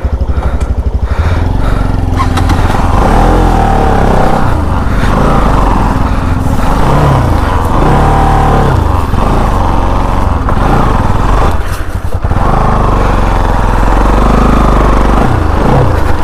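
Bajaj motorcycle engine running and revving in low gear over rough ground, its pitch rising and falling with the throttle. It briefly drops off about twelve seconds in.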